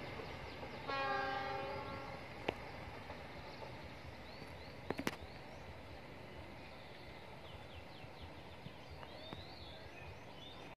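Train horn sounding one blast of a little over a second, about a second in, over the steady running noise of the Argo Wilis passenger train on the track. A few sharp clicks follow a couple of seconds later.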